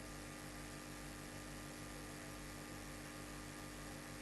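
Faint, steady electrical mains hum, with a fast, even pulsing in its lowest part.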